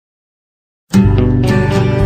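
Silence, then music starts abruptly about a second in.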